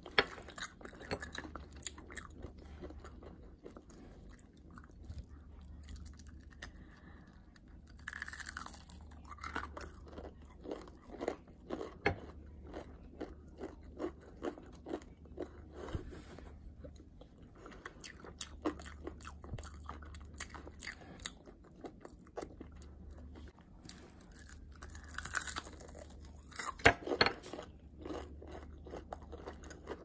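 Close-up chewing and crunching of Popeyes fried chicken, a run of short crisp crunches as the breading is bitten and chewed, in a quick steady rhythm through the middle. One sharper, louder bite stands out near the end.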